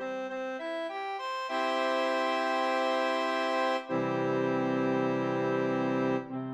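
Sampled organ-type keyboard sound from MuseScore, steady reedy tones that do not decay: a quick run of single notes, then two held chords, the second fuller with lower notes, and a new run of notes starting near the end.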